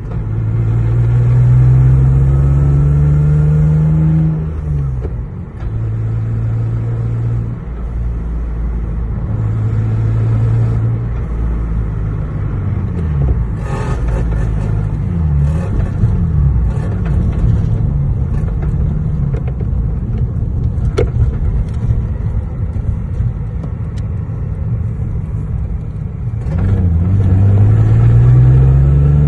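Lexus GS 300's inline-six engine accelerating under load, rising in pitch for a few seconds and then dropping sharply at a gear change of the swapped-in manual gearbox. The engine holds steadier, lower speeds through the middle and climbs in pitch again near the end.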